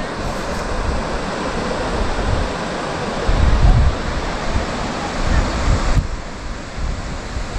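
Wind buffeting the microphone: an uneven, gusty low rumble over a steady rushing hiss, the hiss easing off about six seconds in.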